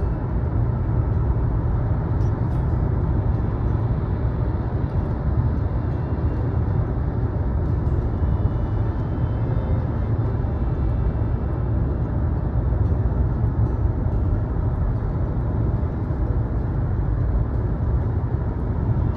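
Steady low rumble of a moving vehicle, road and engine noise as heard from inside a car.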